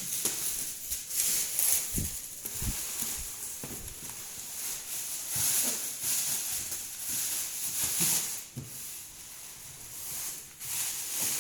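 Cardboard and plastic packaging rustling and scraping as a loudspeaker box is handled and opened, with a few light knocks.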